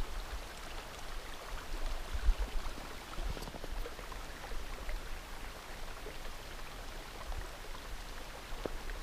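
Small mountain creek trickling under snow banks: a faint, steady water sound with small drips and gurgles.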